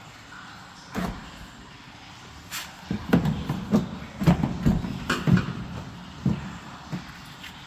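Mercedes-Benz B-Class W245 car door lock being tested after a new door lock actuator was fitted: a single click about a second in, then a quick run of clunks and clicks as the lock and latch are worked over and over.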